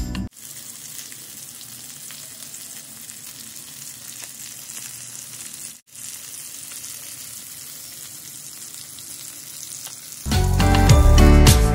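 Masala-coated fish steaks sizzling as they shallow-fry in oil in a cast-iron pan: a steady, even hiss with a brief break near the middle. Background music stops right at the start and comes back loudly near the end.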